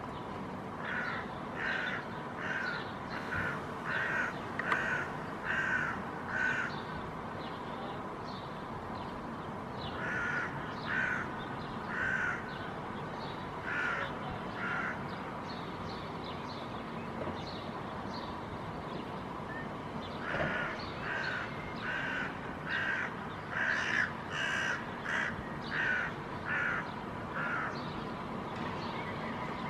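Hooded crows cawing in three runs of repeated caws, about two a second, with pauses between the runs: the parents' agitated reaction to a dog close to their fledgling that cannot yet fly.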